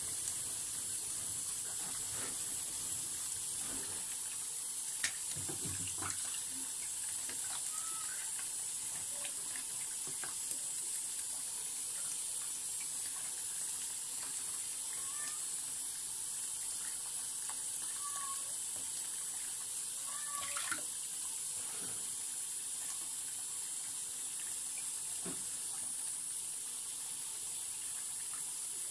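Tap water running steadily into a sink, with a few faint knocks.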